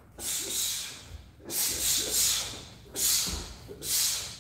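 A martial artist's sharp hissing exhalations through the teeth, four of them about a second apart, one with each strike and step of a double kick combination.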